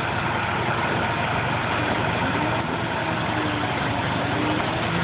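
A heavy engine idling steadily, evenly, with no revving.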